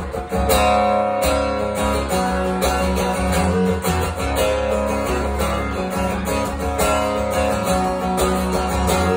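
Solo acoustic guitar strummed in a steady rhythm, the chords ringing on between strokes.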